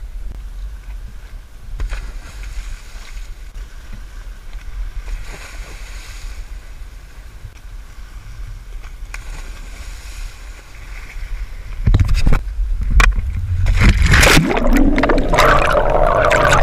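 A steady low rumble with wind-like noise, then from about twelve seconds in a few loud knocks and splashing, bubbling water.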